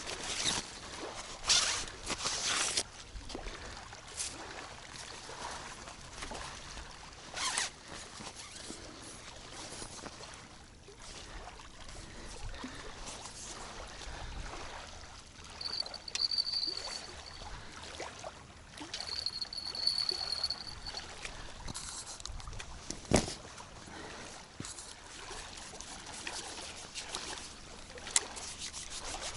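Fishing gear being handled at the water's edge: scattered rustles, clicks and knocks, one of them sharp about three quarters of the way through, over faint water lapping. Two short high steady tones come in the middle.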